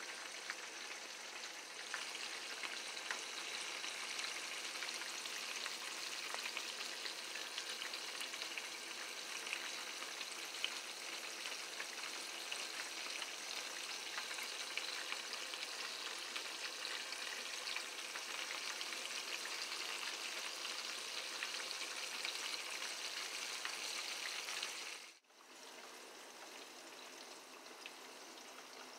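Breaded arrowtooth flounder fillets frying in hot oil in a skillet: a steady sizzle full of small crackles and pops. About 25 seconds in it drops abruptly to a fainter, even hiss.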